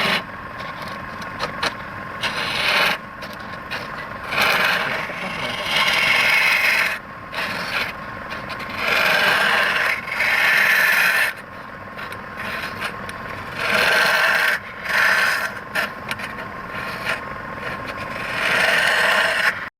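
A tool scraping and cutting against wood spinning on a lathe, in repeated loud passes of about a second each, every second or two, over the lathe's steady running.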